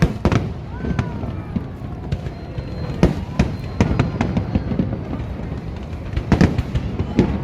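Fireworks display: aerial shells bursting one after another in an irregular run of sharp bangs, loudest about three seconds in and again near the end, with a faint falling whistle about a second in.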